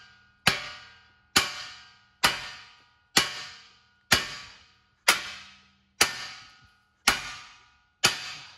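Hammer blows on the steel front steering knuckle of a Nissan R32 Skyline, struck to shock the lower ball joint's taper loose. Nine hard, ringing metal strikes come at an even pace of about one a second. The joint has not yet let go.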